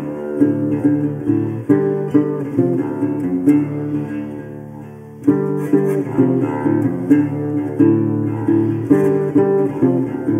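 Background music: acoustic guitar picking and strumming chords, with a brief softer passage about halfway through.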